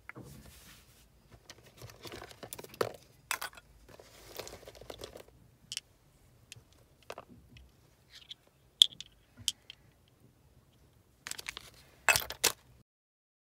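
Hands handling small cosmetic bottles, jars and packaging: scattered rustling and crinkling with light clicks and knocks as containers are picked up and set down. A few sharp clicks come a little after the middle, a quick cluster of louder knocks near the end, then the sound cuts off.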